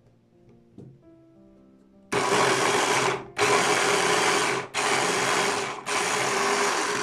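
Electric mini chopper's motor running in four short pulses, starting about two seconds in, chopping green vegetables in its bowl.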